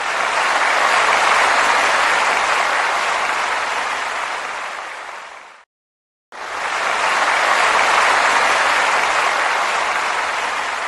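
Crowd applauding, in two takes: each starts abruptly, holds a dense clapping and fades out over about six seconds, with a short silence between them about halfway through.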